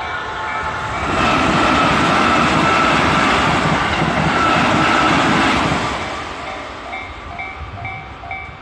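A train passing over a level crossing, loud for about five seconds, then fading. A Japanese level-crossing warning bell rings a steady, repeating two-tone ding at the start, and again once the train noise dies down.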